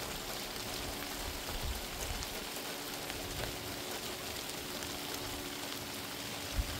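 Steady rain falling, with many small drops ticking through it.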